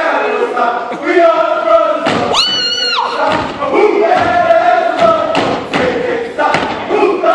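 A group of voices chants in unison in held, sung phrases, with stomps on the stage floor in time. About two seconds in, a shrill high-pitched cry cuts through for under a second.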